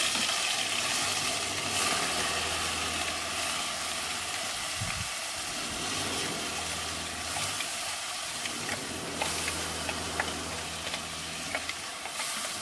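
Onion, garlic, ginger and green chilli paste sizzling steadily as it fries in hot mustard oil in a kadai, stirred with a spoon.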